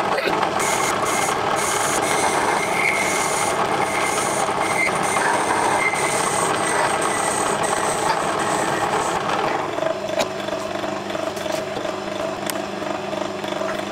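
Small metal lathe running steadily with its chuck spinning. About two-thirds of the way through it is switched off and a quieter hum carries on, stopping near the end.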